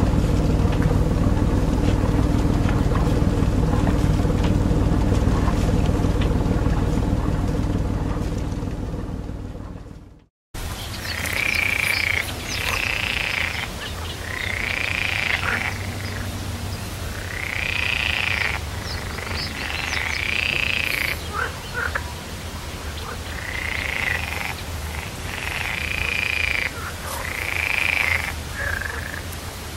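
A sailing yacht's engine running steadily under way, cut off abruptly about ten seconds in. After that, frogs croaking, a string of short calls every second or two.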